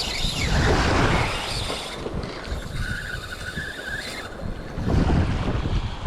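Wind buffeting the microphone over the sound of the sea, with a thin whirring for about a second and a half near the middle.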